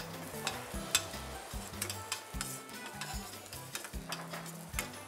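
Metal spoon stirring chopped garlic, onion and dried red chilies as they fry in olive oil in a stainless steel pan: a light sizzle with scattered clinks and scrapes of the spoon against the pan. Background music underneath.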